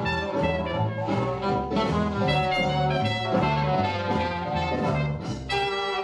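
Upbeat swing-style background music led by brass: trumpets and trombones over a walking bass.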